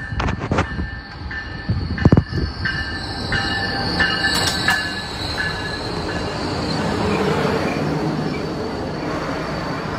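Amtrak Siemens Charger SC-44 diesel locomotive and its passenger coaches passing close by at speed. A few sharp knocks come in the first two seconds, the loudest about two seconds in. High steady tones sound on and off as the locomotive comes alongside, then a steady rush of rail noise follows as the coaches go by.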